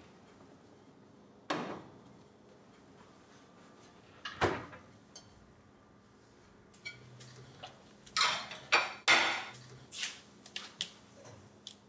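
Dishes and cutlery knocking and clattering as they are handled at a kitchen sink, in scattered sharp clinks. The busiest and loudest stretch comes about eight to nine and a half seconds in.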